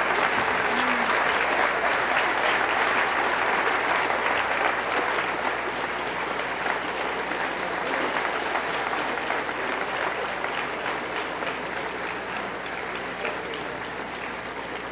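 Large audience applauding steadily, the clapping slowly dying down toward the end.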